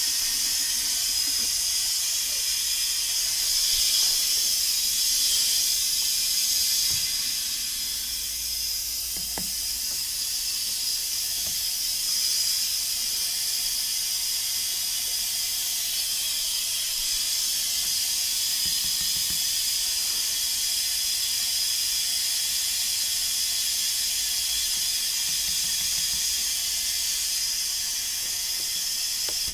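A loud, steady hiss, even and unbroken, that cuts off abruptly.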